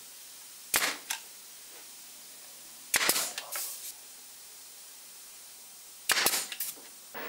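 Makita brad nailer firing two nails in quick succession, sharp snapping shots. Two more bursts of sharp snaps and clacks follow, about three seconds in and again near the end.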